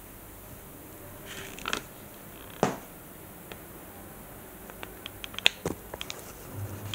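RudiStor RP2000 vacuum-tube headphone amplifier going through its start-up check: a few sharp relay-like clicks and a quick run of small ticks, then a steady low hum switches on near the end.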